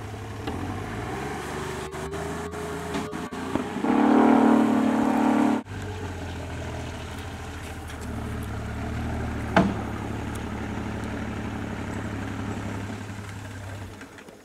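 Outboard motor on an aluminium jon boat running at low speed with a steady low hum, much louder for a second or two about four seconds in. A single sharp knock comes about halfway through, and the motor dies away just before the end.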